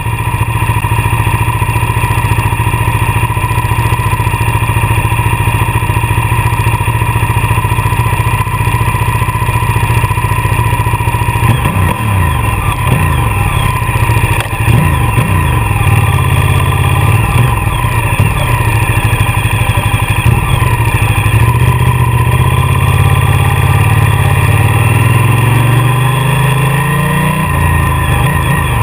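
Ducati motorcycle's V-twin engine running steadily, then from about halfway the revs rise and fall as the bike sets off, with a long climb in pitch near the end as it accelerates, dropping off at a gear change.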